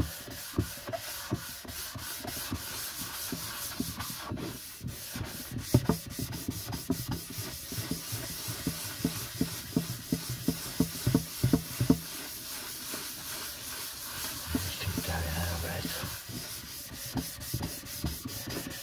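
Very fine 0000-grade wire wool rubbed by hand over an oiled wooden box lid: a scratchy rubbing in repeated back-and-forth strokes, with scattered light clicks. This is the light rub-down between coats of finishing oil.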